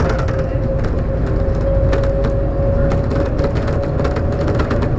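Automated airport people-mover train running along its guideway, heard from inside the car. A steady low rumble with a single motor whine that edges slightly up in pitch, and frequent light clicks and rattles.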